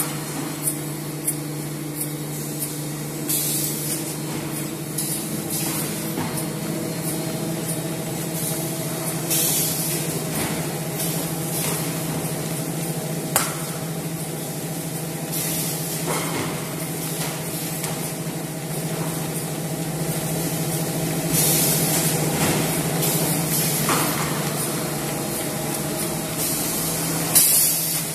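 LJT 4D250HLC spiral paper core making machine running: a steady motor hum with a higher steady tone above it, a hiss that swells about every six seconds, and a few sharp clicks.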